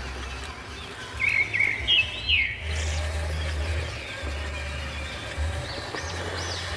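Birds chirping in quick repeated arched notes, over a low rumble that comes and goes.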